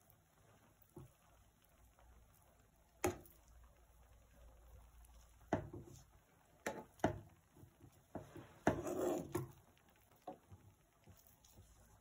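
Metal spoon scraping and tapping against a steel pan while stirring cooked rice: scattered short scrapes and knocks, busiest between about five and nine and a half seconds in, with a longer scrape near nine seconds.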